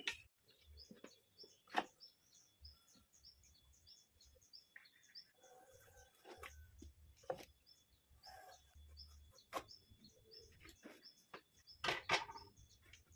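Small bird chirping in short high notes, about three or four a second, with a few sharp wooden knocks as a heavy timber block is handled on the saw table, the loudest near the end.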